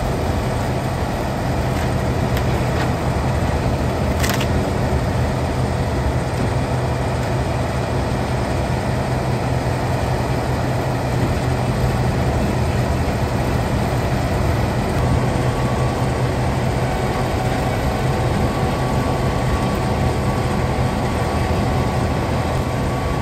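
Komptech Axtor 6010 mobile shredder and the grab excavator feeding it, their diesel engines running with a steady low drone. A short sharp sound stands out about four seconds in.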